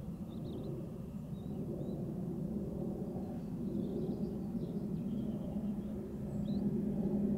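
Open-country ambience: a steady low rumble, with faint bird chirps scattered throughout. A low hum swells near the end.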